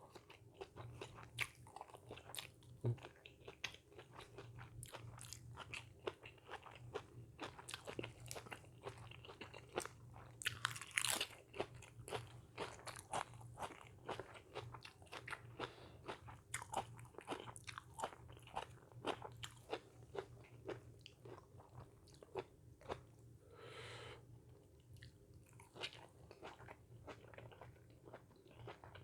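A person chewing and biting crunchy food close to the microphone: a steady run of irregular crunches and mouth clicks.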